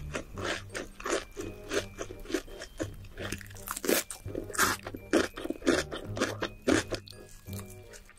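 Close-miked mukbang chewing of a crunchy fried, breaded ball, a quick run of crisp crunches one after another.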